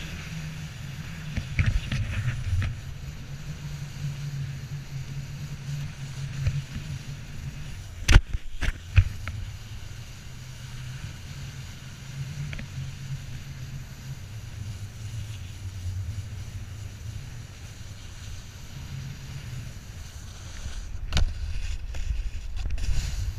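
Snowboard sliding and carving over snow, a steady scraping rumble with wind on the microphone. A few sharp knocks come about eight seconds in and again near the end.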